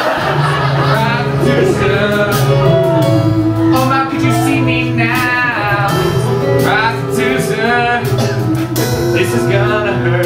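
A man singing a solo song in long held notes over instrumental accompaniment.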